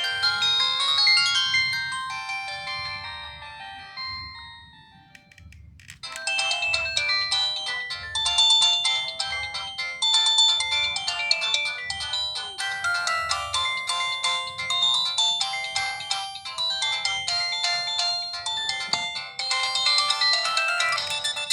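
Samsung SCH-N480 mobile phone playing ringtone melodies through its speaker. One tune fades out about five seconds in, and a second, busier tune of quick notes starts about a second later.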